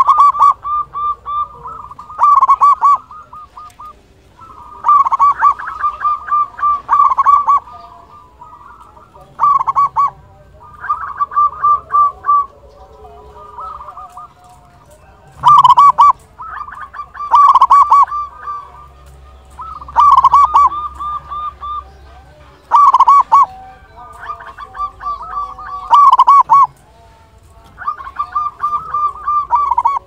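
Local-strain zebra dove (perkutut) singing its cooing song: short phrases of rapid, stuttering coos, repeated every two to three seconds.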